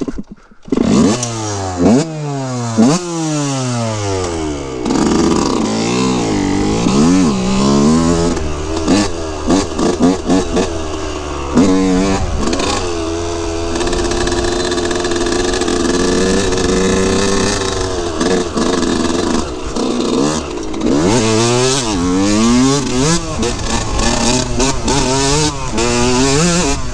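2003 Yamaha YZ125's single-cylinder two-stroke engine revving under riding, its pitch climbing and dropping again and again as the throttle is opened and shut through the gears. It holds at a fairly steady high pitch for several seconds midway, then goes back to rising and falling near the end.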